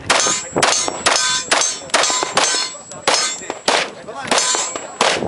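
Glock 21 Gen 4 .45 ACP pistol fired in a steady string of about ten shots, roughly two a second, each crack followed by a short ring.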